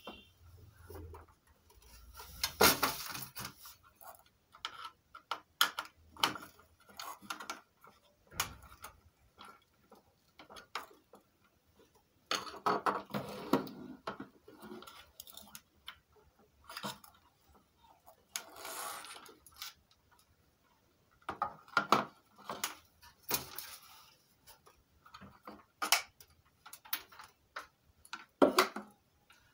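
Irregular clicks, knocks and short scrapes as a plastic home-theatre casing, its circuit boards and cables are handled and moved about.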